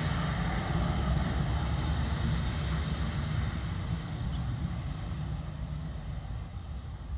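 Airbus A320 airliner's jet engines running as it taxis and turns on the runway: a steady rumble and hiss that grows gradually fainter in the second half as the aircraft swings away.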